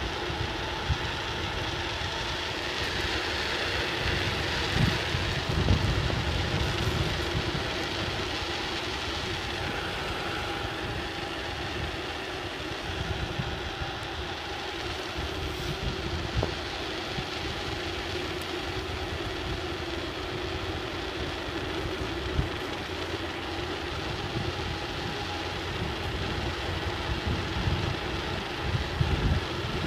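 Steady rumble of a bicycle ridden fast over a rough trail: wind buffeting the microphone, tyre noise and rattling of the bike, with a few sharp knocks from bumps.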